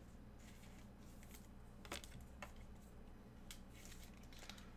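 Near silence with faint rustling and a few soft clicks of trading cards being handled.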